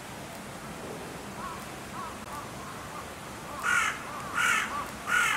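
Three short, harsh animal calls, evenly spaced about three-quarters of a second apart, near the end.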